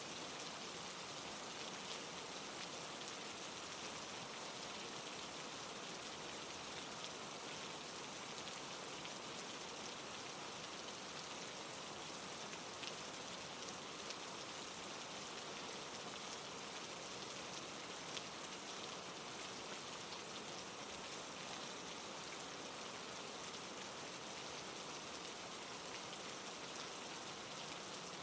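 Steady rain falling on a surface, a constant hiss of many small drops with no let-up.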